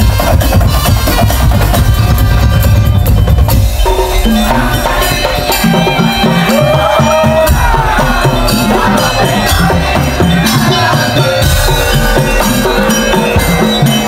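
Madurese daul (tong-tong) music: a drum and tuned-percussion ensemble playing loudly. Heavy bass drumming gives way about four seconds in to a lighter beat with a melody over it.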